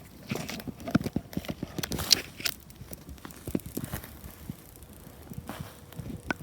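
Footsteps on the forest floor: irregular crunching steps, pausing briefly after the middle and then going on.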